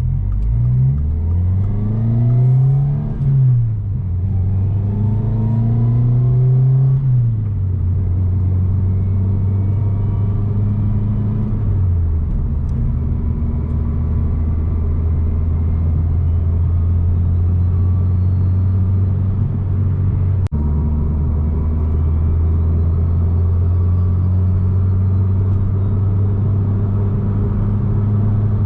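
2022 Subaru WRX's turbocharged flat-four engine, fitted with an ETS Garrett G30-900 turbo kit and catback exhaust, climbing in pitch and dropping back with several gear changes over the first twelve seconds or so, then running at a steady cruising speed.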